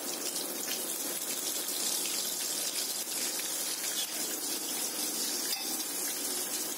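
Curry leaves frying with mustard seeds and split dals in hot sesame oil, a tempering: a steady sizzle.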